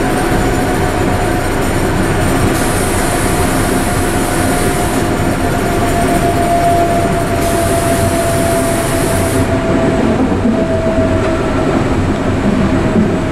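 Running noise of a Berlin U-Bahn A3L 71 car under way, heard from inside the car: a steady rumble of wheels on rails, with a thin whine that slowly drops in pitch.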